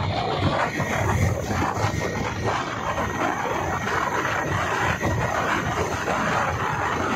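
Steady engine and road noise heard from inside a moving vehicle driving along a highway.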